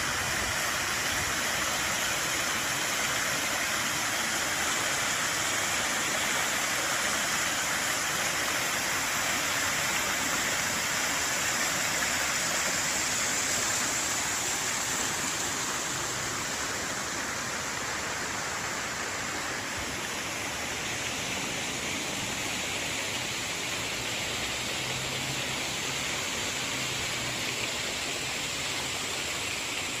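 Steady splashing hiss of a tiered public fountain, its arching jets and central plume falling onto the stepped basin. The water sound eases off a little about halfway through.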